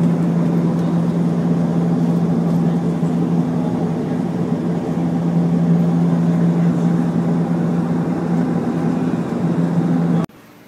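Steady drone of a high-wing airliner's engines heard inside the cabin, with a strong low hum under an even rushing noise; it cuts off abruptly near the end.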